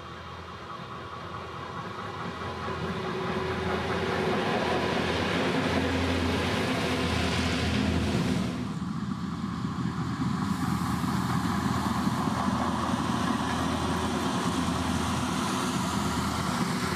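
Red Uerdinger-type diesel railbus approaching and passing close by, its engine and running gear growing louder over the first few seconds. After an abrupt change about eight and a half seconds in, the railbus runs on with a steady engine drone and a hiss.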